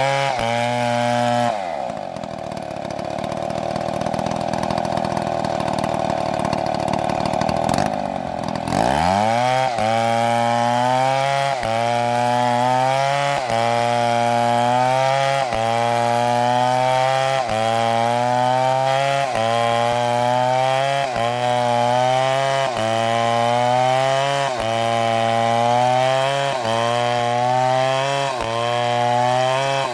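Two-stroke chainsaw cutting wood: about a second and a half in, the engine drops in pitch and stays lower for several seconds as it bogs under load in the cut, then revs back up and runs with its pitch rising and falling in a regular cycle about every second and a half.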